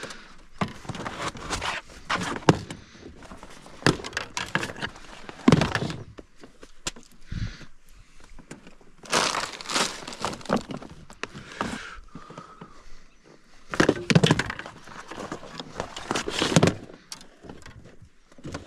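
Fishing gear being handled in a small boat: an irregular run of knocks, clunks and rustles as bags, rods and tackle are moved about.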